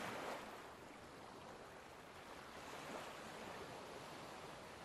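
Faint, steady wash of sea waves.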